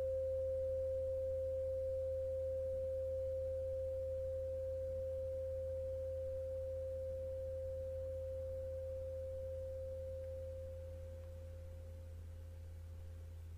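A steady pure 528 Hz sine tone, sold as a 'healing frequency', fading gradually and dropping a little further near the end, over a low steady hum.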